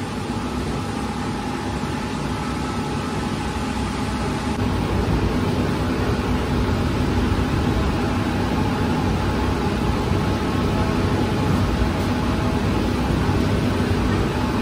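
Steady mechanical rumble and hiss of bakery machinery, growing a little louder about four and a half seconds in.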